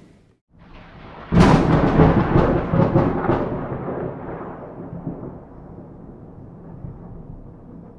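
Thunderclap from a close lightning strike. It opens with a sudden sharp crack about a second and a half in and several more crackling strikes over the next two seconds, then a rolling rumble that slowly fades.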